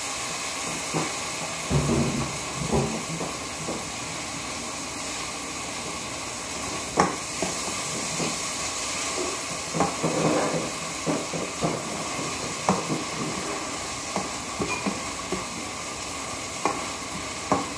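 Onion and tomato sizzling as they sauté in a non-stick frying pan, stirred with a spatula: a steady frying hiss with scattered clicks and scrapes of the spatula against the pan.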